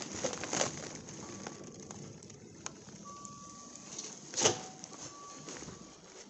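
Rustling and a few knocks and rattles, the loudest a sharp knock about four and a half seconds in. Behind them an electronic beep sounds on and off, each tone held for about a second.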